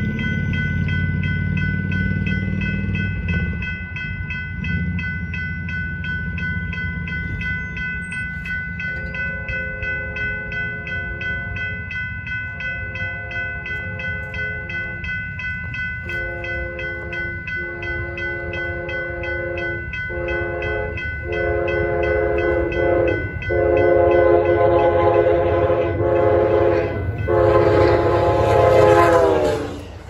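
Amtrak Texas Eagle locomotive's multi-note air horn sounding about seven blasts, growing louder, with the last ones dropping in pitch as the train passes. Under it a grade-crossing bell rings steadily, along with the low rumble of the oncoming train.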